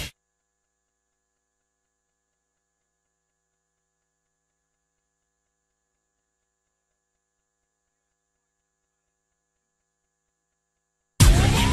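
Dead silence for about eleven seconds: music cuts off right at the start, and loud music starts again abruptly near the end.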